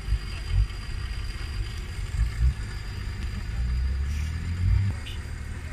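An off-road vehicle's engine running at low revs, with low rumbling and uneven thumps. It grows steadier and louder from about three and a half to five seconds in.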